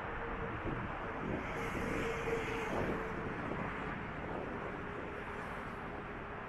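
Road traffic: steady engine and tyre noise of cars on the road, with a low steady drone, swelling about two seconds in as a vehicle passes.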